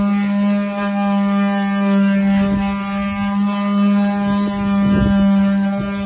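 The 'canto' of a wooden ox cart: its wooden axle grinding in its wooden bearings as the solid wheels turn, giving a loud, steady, droning whine that pulses slightly. A few knocks come about five seconds in.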